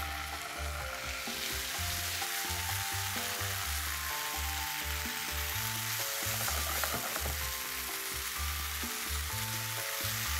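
Reducing red wine and tomato sauce sizzling and bubbling in a nonstick frying pan while a silicone spatula stirs it, over background music with a repeating bass line.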